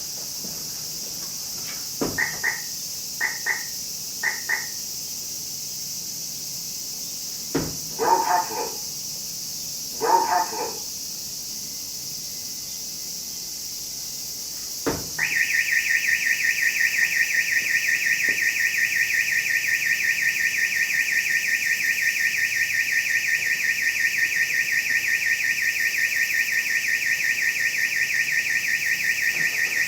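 Steelmate car alarm: a click and three short high chirps, another click and two short louder bursts, then, about halfway through, a click and a continuous fast-warbling high siren tone that keeps going.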